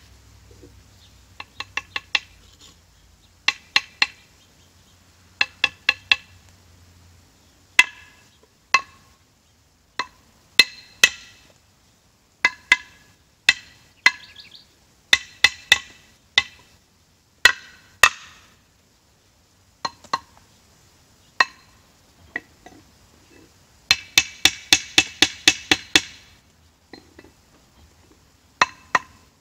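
Mason's trowel tapping a concrete block down into its mortar bed to level it: sharp metallic taps with a ringing tone, in short groups of two to four, then a quick run of about a dozen taps near the end. The taps are hard enough that the mason believes one cracked the block.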